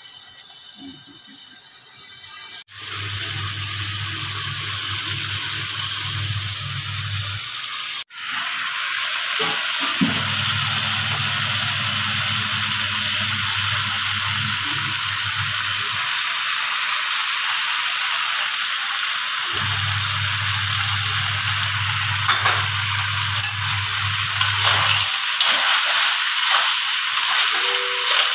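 Snails in sauce sizzling and frying in a wok, a steady hiss with two abrupt cuts early on. A low hum comes and goes underneath, and light clicks of stirring come in near the end.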